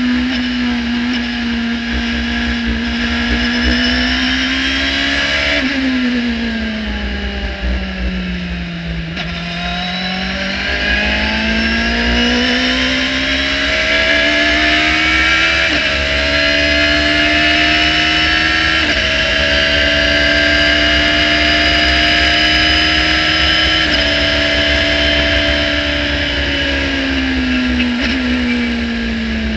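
Radical SR3-RSX race car engine heard from the cockpit under racing load. The revs fall away through a slow corner in the first third, then climb again with several quick gear changes, with a steady high whine above the engine note.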